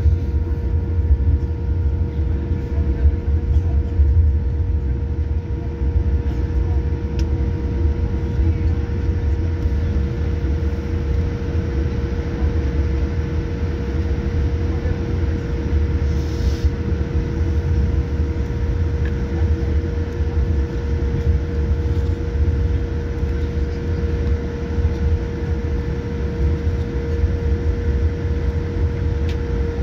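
Cabin noise of a Boeing 787-9 taxiing: a steady low rumble from the idling engines and the wheels rolling on the taxiway, with a steady hum throughout and a brief hiss about halfway through.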